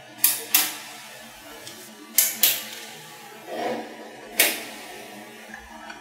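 Bars of small magnetic balls snapping together end to end: five sharp clicks, two quick pairs and then a single one, with a short, softer rolling rustle of balls just before the last click.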